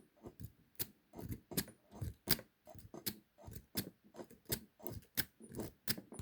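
Lock pick raking in and out across the pin stack of a large Tooltech padlock, giving a quick, uneven run of metal clicks and scrapes, about three a second.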